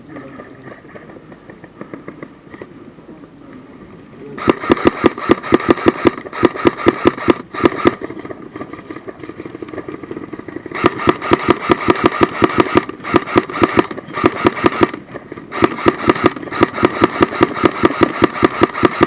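Airsoft gun firing long fully automatic bursts: a rapid train of sharp snaps over a steady mechanical whine, starting about four seconds in, pausing around eight seconds and again briefly near fifteen seconds, then firing again.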